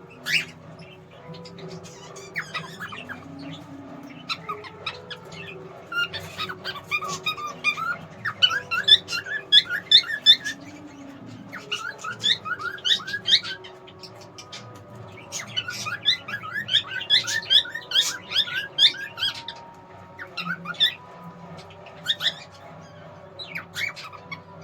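Pet cockatiel whistling and chirping in several bursts of quick, sliding notes, with pauses between them.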